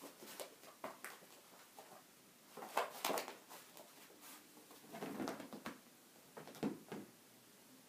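A cat's paws scuffling and thumping on the floor in short scattered bursts while it chases a laser dot, loudest about three seconds in.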